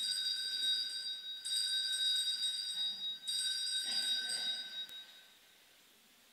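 Small altar bell rung three times at the elevation of the chalice after the consecration, each stroke ringing out and fading.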